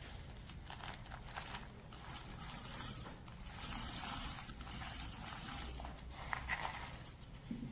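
Whole coffee beans poured into the chamber of a Timemore Chestnut C3 ESP Pro hand coffee grinder: an irregular patter and rattle of beans.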